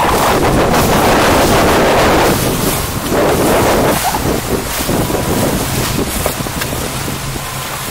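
Wind buffeting the microphone over water rushing along the hull of a six-person outrigger canoe under way with its crew paddling.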